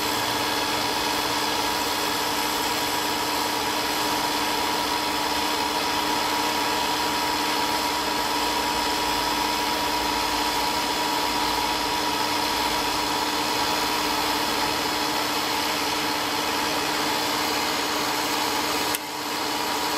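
TOS FNK 2 universal milling machine running with its spindle turning: a steady motor and gearbox hum with a constant whine. It dips briefly near the end.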